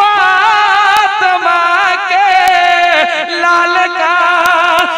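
A man singing an Urdu devotional song (naat/manqabat) into a microphone without instruments, drawing out long notes that waver up and down in pitch.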